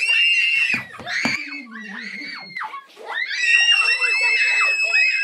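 Children screaming and shrieking, several high voices overlapping, with one long held scream through the second half.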